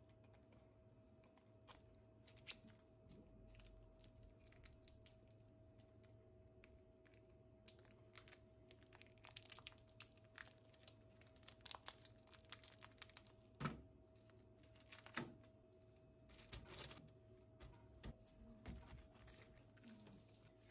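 Quiet handling sounds: crinkling and tearing with light clicks and taps, growing busier about a third of the way in, over a faint steady hum.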